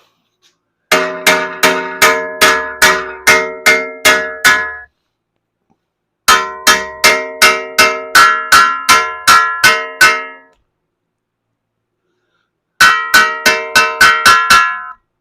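Hammer blows on a steel patch piece, ringing like a dinner bell. They come in three runs of quick, even strikes, about three a second, with short pauses between the runs.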